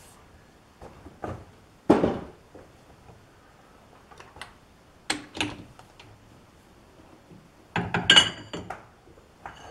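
Scattered metal clanks and clinks of tools and parts at a metal lathe, a few seconds apart. The loudest, ringing cluster comes near the end, as a chuck key is worked in the three-jaw chuck to release a steel bar.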